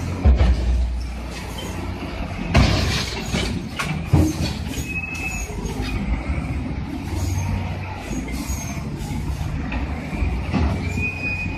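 Front-end loader diesel engines running with a steady low rumble, broken by several sharp metal clanks and a few short high squeals as the machines ram and push against each other.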